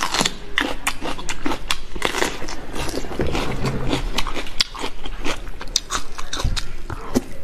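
Close-miked mouth sounds of biting and chewing sauce-coated enoki mushrooms, a dense run of quick wet clicks, smacks and crackles.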